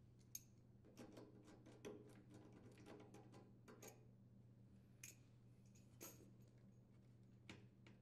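Faint, irregular clicks and taps of hands and tools working on a generator's metal and plastic outlet housing, over a low steady hum.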